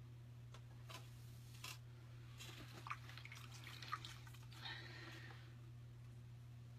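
Faint splashing and dripping as a hand dips into a bucket of throwing water and wets the clay on a pottery wheel, a few short sounds, over a low steady hum.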